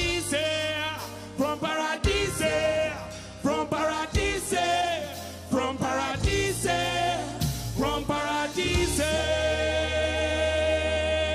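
Live music: a solo voice sings wordless runs over deep sustained bass notes, ending in a long held note with vibrato.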